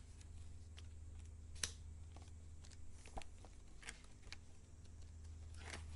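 Pages of a photo book being turned by hand on a shop counter: a handful of soft paper rustles and light taps, the sharpest about one and a half seconds in, over a low steady hum.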